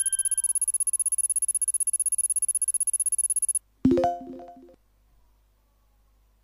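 Quiz countdown-timer sound effect: rapid, even ticking for about three and a half seconds, then a short synthesized chime when the correct answer is revealed, fading out within a second.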